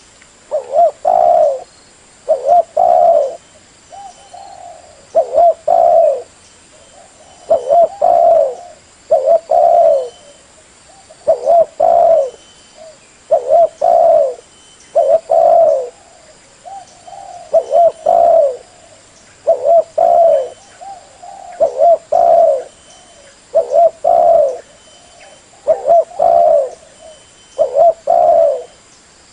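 Spotted dove cooing over and over, each phrase a soft lead-in note followed by two louder coos, one phrase about every two seconds.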